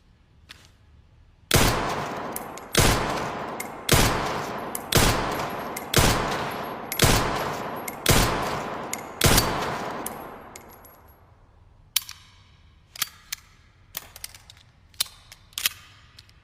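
Eight handgun shots, a little over a second apart, each followed by a long echoing decay. From about twelve seconds in comes a run of quieter sharp clicks.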